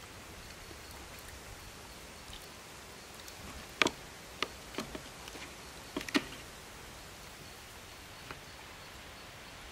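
Quiet outdoor ambience with a faint steady hiss, broken by a handful of short sharp clicks and taps from about four to six seconds in and once more near the end: eating utensils knocking against camp cookware during a meal.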